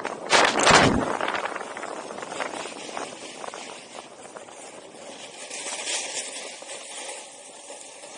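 Snowboard sliding and carving over groomed snow, a steady scraping hiss mixed with wind buffeting the camera microphone. A loud rush comes about half a second in, and the scrape swells again a little past the middle.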